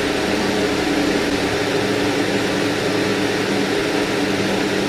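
An engine running steadily at a constant speed, with a broad hiss over its hum.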